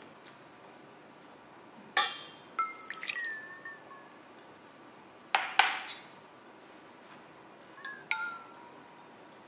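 Small cups clinking against a stainless steel mixing bowl as water and an egg are tipped in, in four brief clusters of knocks, the bowl ringing briefly after each.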